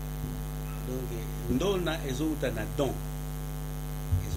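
Steady electrical mains hum, with a man's voice briefly from about a second and a half in and a short low thump near the end.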